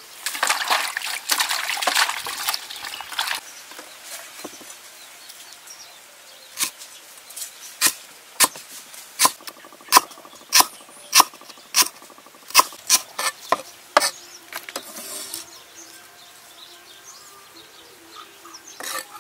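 A rustle for the first few seconds, then a large cleaver slicing lemongrass stalks on a stone slab: about fifteen sharp chops, coming roughly two a second.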